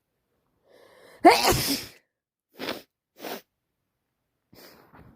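A woman sneezes once, loudly, with a head cold, after a short in-breath. Two short sniffs follow, and a faint breath near the end.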